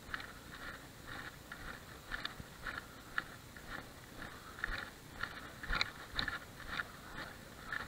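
Footsteps crunching on a dirt and gravel track, about two steps a second, with a light rattle of carried fishing gear.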